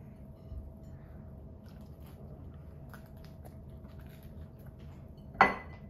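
Faint chewing and biting as children eat sausage biscuits. A short, loud vocal sound comes near the end.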